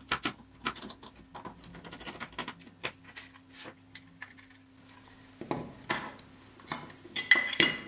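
Small metallic clicks and clinks of a screwdriver, screws and a thin aluminium-alloy case being handled while a phone's analog module is taken apart. The clicks are scattered, growing louder and busier near the end.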